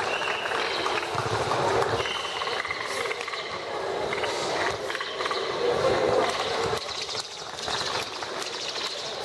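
Outdoor crowd noise: many spectators chattering and calling out at once, with a few short high-pitched calls standing out.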